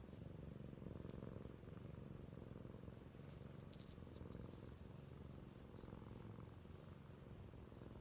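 Domestic cat purring steadily and softly while being stroked under the chin. Around the middle, the small bell on its collar tinkles a few times.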